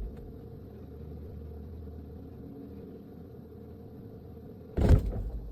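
Low, steady refrigerator hum heard from inside the closed fridge. About 4.8 seconds in, a sudden loud thump and rustle as the door is pulled open.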